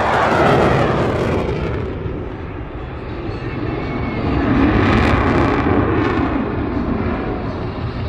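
F-16 Fighting Falcon jet engine roaring through a demo pass, easing a little then swelling again about five seconds in.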